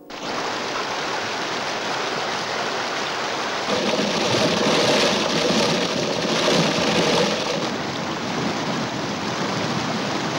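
Whitewater rapids rushing, a dense, steady rush of water that starts abruptly and swells louder for a few seconds in the middle.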